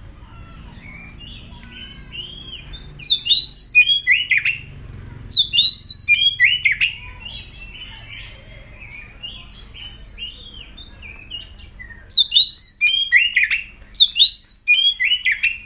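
Oriental magpie-robin singing its fierce song. Two loud runs of rapid, varied whistled phrases come about three seconds in and again about twelve seconds in, with softer scattered notes between them.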